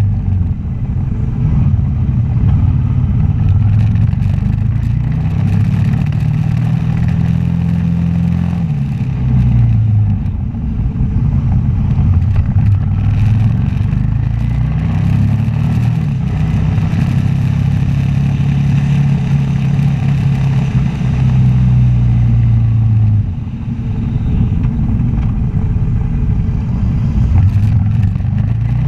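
Suzuki V-Strom 650's V-twin engine under way, its pitch climbing as the bike accelerates and dropping briefly about ten seconds in and again past twenty seconds as it shifts or eases off, with wind and road noise.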